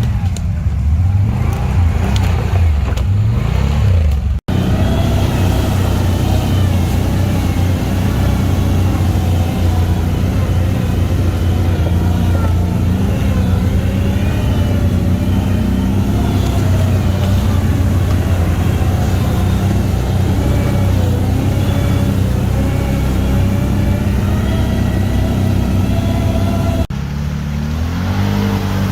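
ATV engine running under changing throttle, its pitch rising and falling as it is ridden. The sound cuts off abruptly twice, about four and a half seconds in and near the end, where the engine note jumps to a different pitch.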